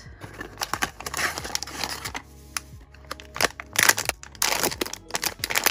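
Crinkling and crackling of a white plastic blind-box inner bag as it is pulled out of its cardboard box and squeezed in the hands. The crackles come in quick, irregular strokes and are loudest about four seconds in.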